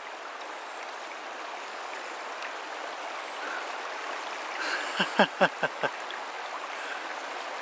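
Steady rush of running water after heavy rain. A few short voice sounds come through about five seconds in.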